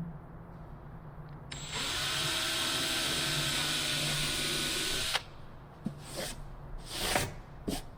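Handheld power drill running at a steady speed while drilling, starting suddenly and cutting off after about three and a half seconds. A few short knocks follow.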